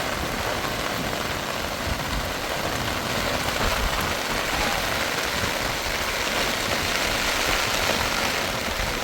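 Steady rushing noise of water, even and unbroken, with an irregular low rumble underneath.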